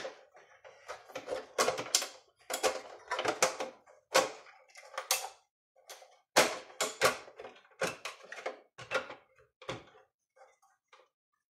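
Irregular clicks and knocks as a CPU board is handled and seated back into a Mindray T5 patient monitor's housing. They come thick for the first several seconds and thin out towards the end.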